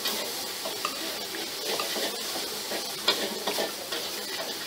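Metal spoon and fork clinking and scraping against a ceramic plate while eating, a few sharp clicks over a steady background hiss.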